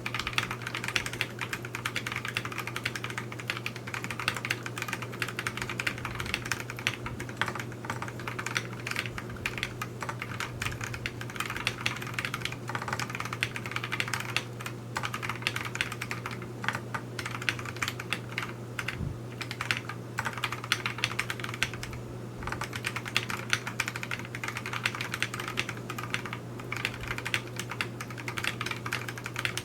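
Continuous typing on a mechanical keyboard with lubed Durock T1 62g tactile switches topped with Gateron Milky housings, in a wooden TADA68 case: a steady stream of keystroke clacks with brief pauses, picked up by a camera's built-in microphone.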